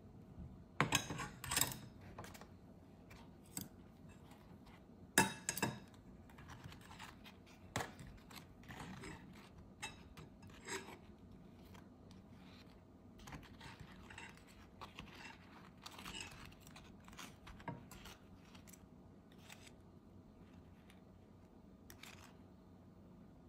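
Scattered clicks, knocks and scraping of kitchen utensils being handled, loudest in two brief clusters about a second in and about five seconds in, then smaller taps every second or two.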